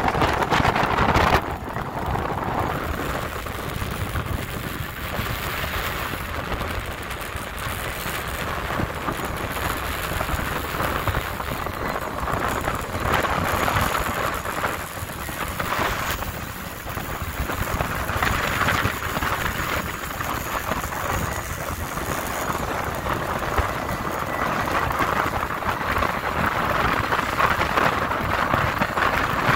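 Wind rushing over the microphone and water splashing along the hull of a Boston Whaler running fast across choppy water: a loud, steady rush that swells and eases, with a low rumble underneath.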